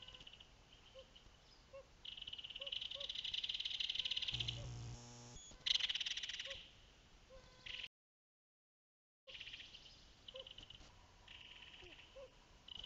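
Frogs calling in a spring marsh: pulsing trills and short repeated chirps. A brief low buzz comes about four and a half seconds in and a louder rasping burst about a second later, then the sound cuts out completely for over a second before the calling resumes.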